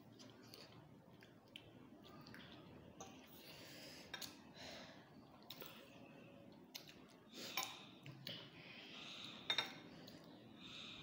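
Metal forks clinking against glass bowls while noodles are eaten and slurped, with a few sharper clinks in the second half.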